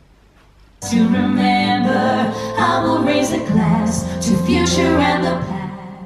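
Pop song with a singer and guitar from a BBC Radio 2 stream on a Squeezebox network music player. It comes in about a second in after a near-quiet gap and fades down near the end as the player's volume knob is turned down.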